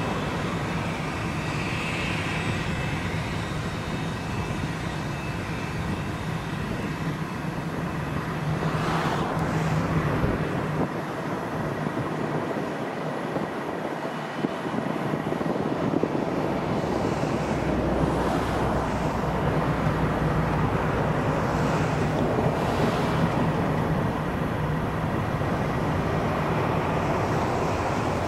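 Cessna Citation Excel business jet's two rear-mounted turbofan engines running at taxi power as the jet rolls along the taxiway: a steady rumble and hiss with a faint high whine, growing a little louder in the second half.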